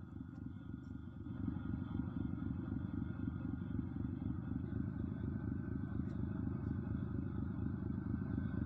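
Engine running with a steady low rumble and a fast, even pulsing.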